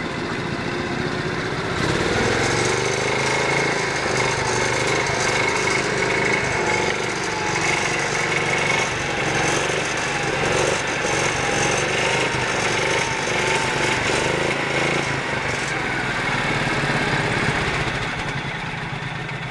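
Small garden tractor engine running hard, its pitch rising and falling as it labours. It gets louder about two seconds in and eases off near the end.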